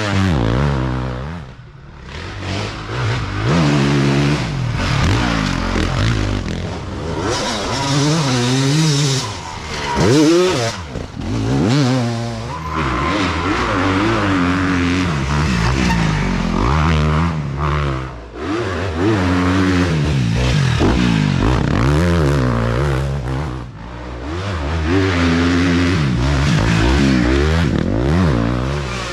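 Dirt bike engines revving hard and letting off again and again, the pitch rising and falling with the throttle as the bikes climb and drop through rough ground.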